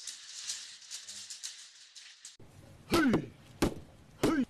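For the first couple of seconds there is only a faint, dry rattle. Then come three heavy strikes about two-thirds of a second apart, each with a quickly falling tone, from a wooden mallet pounding rice dough in a wooden trough.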